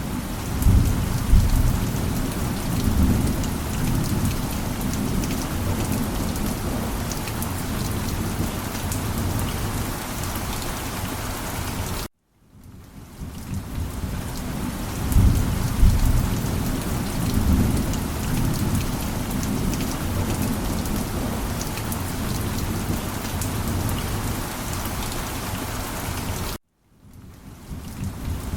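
Steady heavy rain with deep rolling thunder rumbles, about a second in and again about halfway. The sound cuts out abruptly twice and fades back in, the seams of a looped recording.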